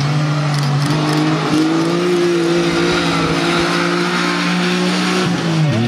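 Mitsubishi Triton rally ute's engine held at high, steady revs as it powers along a gravel stage, over a hiss of tyres on loose gravel. Near the end the revs drop sharply and settle lower.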